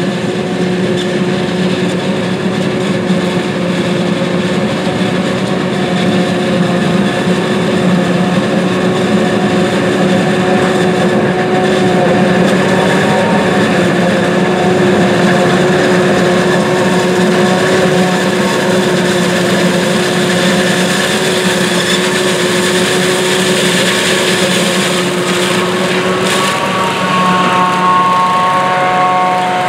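John Deere 8600 self-propelled forage harvester chopping corn for silage: a steady heavy machine drone with a high whine over it. Near the end a new, higher whine sets in.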